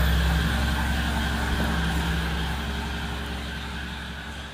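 Excavator's diesel engine running steadily, a low even hum that slowly fades away.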